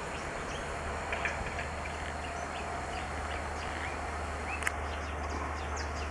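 Small birds chirping in short, scattered calls over a steady low hum, with one sharp click about three-quarters of the way in.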